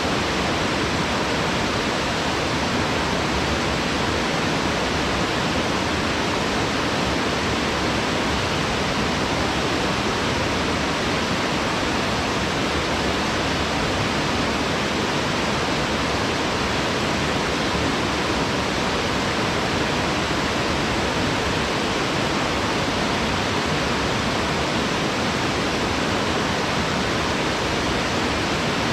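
Waterfall pouring into a wide plunge pool: a steady, unbroken rush of falling water.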